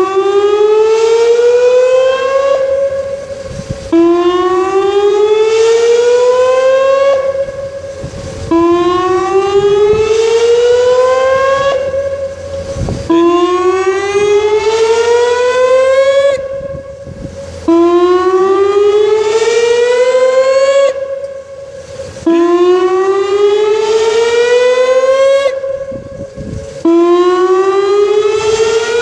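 Whelen WPS 2810 electronic outdoor warning siren sounding during its weekly test: a loud, repeated rising tone. Each note glides up over about three seconds, holds briefly and cuts off, and a new one starts about every four and a half seconds.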